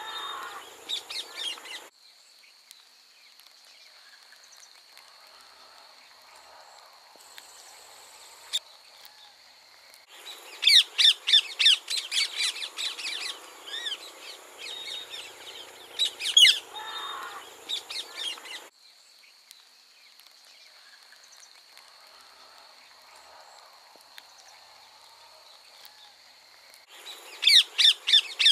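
Rose-ringed parakeets calling: shrill, rapid screeches in bursts. Between the bursts are quieter stretches with a steady high whine.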